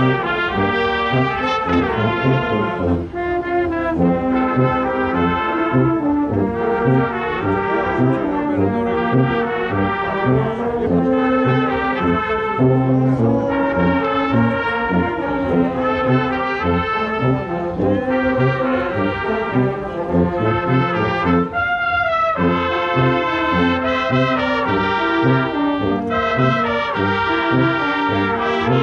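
Bersaglieri fanfare, a brass band, playing, with a steady bass beat under the melody and a brief break about three seconds in and again about twenty-two seconds in.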